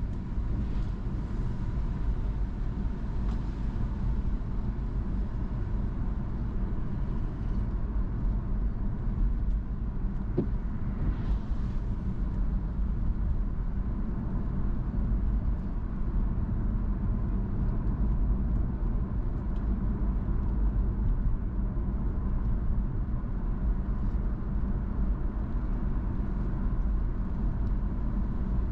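Car driving along at steady speed: an even low rumble of engine and tyre road noise.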